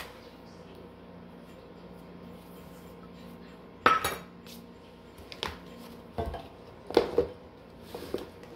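Kitchenware clinking and knocking as ingredients are measured into a bowl: one sharp ringing clink about four seconds in, then several lighter knocks and clinks, over a faint steady hum.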